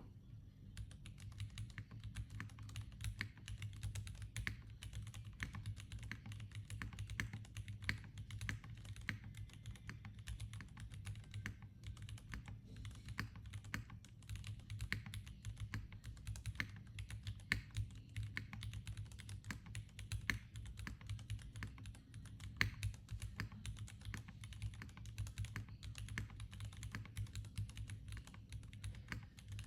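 Continuous typing on a Geonworks F2-84 mechanical keyboard with Cherry MX Orange switches: a rapid, irregular stream of key clacks. A steady low hum runs underneath.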